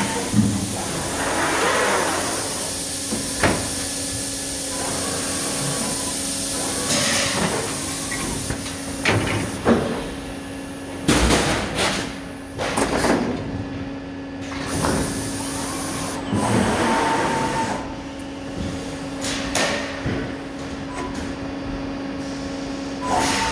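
Prima Power PS 1225 CNC turret punch press with its Compact Express automatic load/unload unit working: a steady hum with hisses of air and irregular knocks and clunks, about a dozen of them, as sheets are handled and punched.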